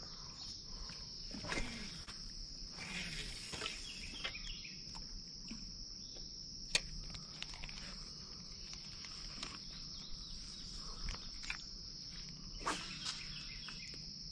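Steady high-pitched insect chorus, one unbroken drone, with a few soft clicks and knocks scattered through it.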